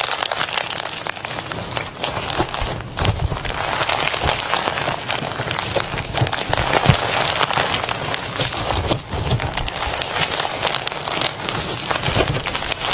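Soft slime being squished and worked by hand, giving a steady run of small wet crackles and pops.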